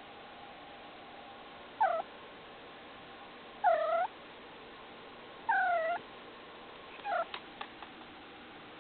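Domestic cat meowing four times, about two seconds apart; the second and third meows are the longest, and a few light clicks follow the last.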